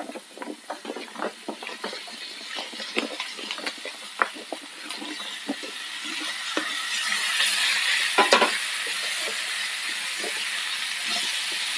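Raw potato wedges tumbling from a plate into a hot pan of fried onions and spices in coconut oil, with many small knocks as they land. About six seconds in, the sizzle swells as the potatoes reach the oil, and a wooden spatula stirs and knocks against the pan.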